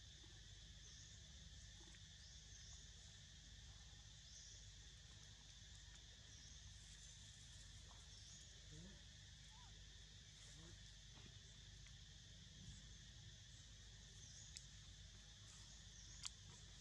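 Near silence: faint outdoor background hiss with short, high insect chirps recurring at irregular intervals, and a single sharp click near the end.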